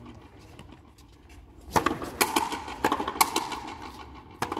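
Frontenis rally: the hard rubber ball is struck by stringed rackets and hits the court's front wall. After a quieter start there is a run of sharp cracks, about every half second from roughly two seconds in, and a lighter one near the end.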